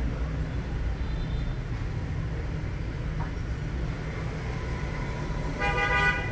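Steady low rumble of passing traffic, with a vehicle horn tooting once, briefly, near the end.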